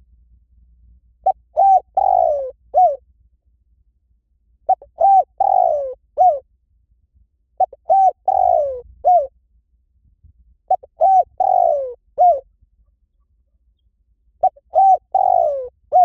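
Spotted dove calling: five matching cooing phrases, one about every three seconds, each a few short coos followed by a longer falling coo and a brief final note.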